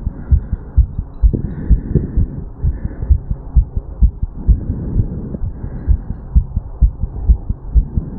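A human heartbeat picked up against the chest over the mitral valve area: a regular run of low thumps, about two a second, in the lub-dub pattern of heart sounds.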